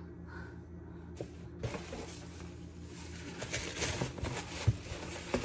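Rustling and small knocks of packaging as items are dug out of a subscription box, starting about a second and a half in, over a steady low hum.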